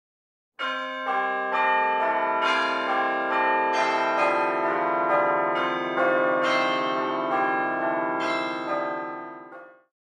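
Bells ringing a peal: many overlapping strikes, about two a second, each ringing on under the next. It begins out of silence about half a second in and fades out near the end.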